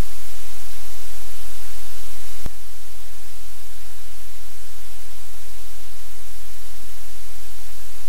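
Loud, steady hiss of static with a low hum beneath it, and a single sharp click about two and a half seconds in, after which the hiss is slightly quieter.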